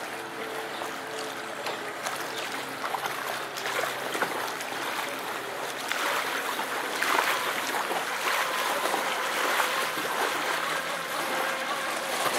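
Pro Boat Sonicwake radio-control boat's electric motor whining as the boat runs across the water, a thin tone over the wash of spray and ripples. From about six seconds in, the whine rises in pitch and the sound gets louder as the boat comes closer.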